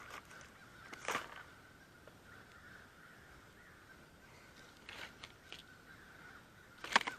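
Crows cawing in alarm: a few short calls about a second in and around five seconds, with the loudest call near the end.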